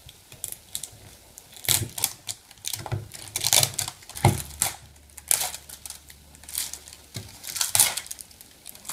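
Thin plastic wrapping film crinkling and tearing in irregular crackles as it is peeled by hand off a plastic surprise egg.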